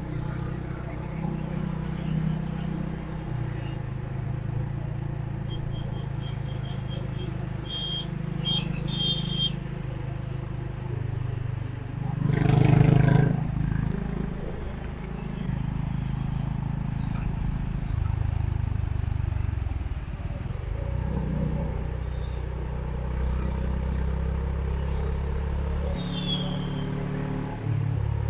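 Honda H'ness CB350's single-cylinder engine running on the move, its pitch stepping up and down with throttle and gear changes. About halfway through there is a brief loud rush.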